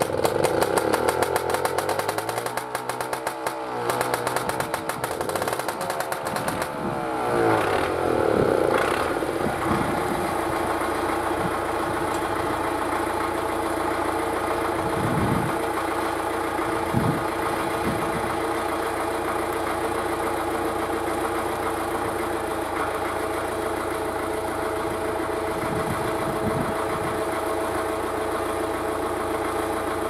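Tractor's two-stroke pony starting engine running with a fast, buzzy rattle to turn over the diesel. About eight seconds in the diesel catches and settles into a steady idle, with a few low thumps.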